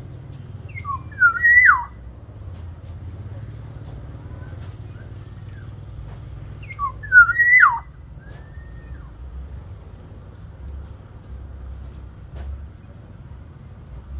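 Black-naped oriole singing a short, fluty whistled phrase twice, about six seconds apart, the same rising-then-dropping phrase each time, over a steady low hum.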